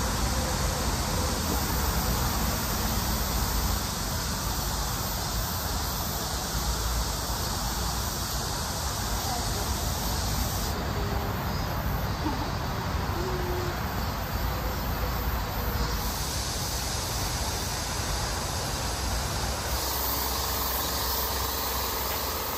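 Steady outdoor background noise: an even hiss with a low rumble underneath, changing abruptly at a few edit cuts.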